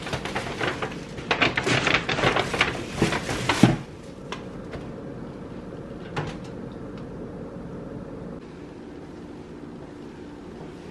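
Rattling, clattering knocks for about four seconds, ending in a loud thump, then a low steady hum with a couple of faint clicks.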